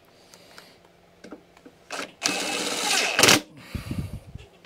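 DeWalt cordless impact driver on a long extension bar, spinning and hammering a nut down onto the lawnmower engine's airbox studs. It starts about two seconds in and runs for just over a second before stopping.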